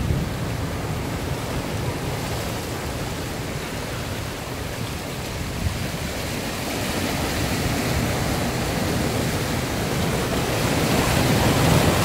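Heavy ocean surf churning and washing between coastal rocks: a steady rush of water with a deep rumble, swelling to a louder surge near the end as a wave comes in.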